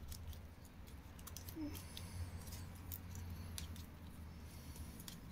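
Faint, scattered crackles and clicks of soaked anea (cattail-leaf) strands being worked by hand into the rim of a small woven basket.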